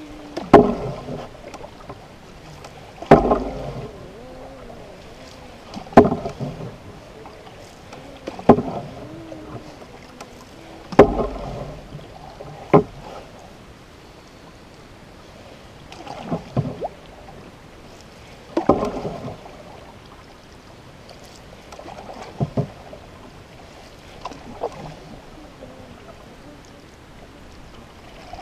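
Canoe paddling on calm water: a sharp stroke of the paddle with a splash and swish of water, repeating about every two and a half seconds.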